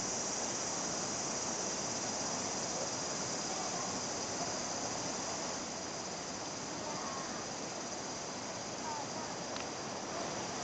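A river flowing: a steady, even rush, with a few faint short bird chirps in the second half.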